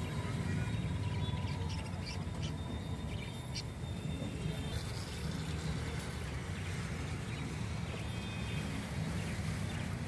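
Busy pet-market ambience: a steady low rumble with background voices, and scattered short chirps and clicks from caged birds.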